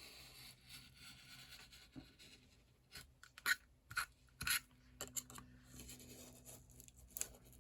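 A blade scraping through stacked paper and vellum along a ruler: about four short strokes half a second apart, from about three seconds in, then lighter scratches. The vellum is crinkling and the blade is not making a clean cut.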